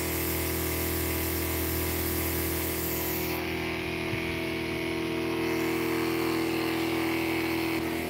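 Swell Reptile rain system running: its water pump hums steadily under the hiss of the misting nozzles spraying water, a bit noisy.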